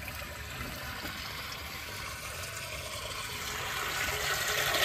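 Water from a hose pouring into a large metal cooking pot (degh), a steady splashing stream that grows louder toward the end.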